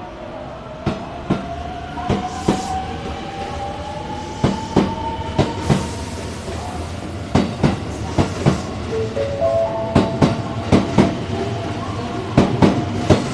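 JR West 281 series Haruka limited express pulling out of a station. Its electric traction motors whine, rising steadily in pitch as it gathers speed, and the wheels clatter over rail joints in regular pairs of sharp clicks as each bogie passes, over a low rumble.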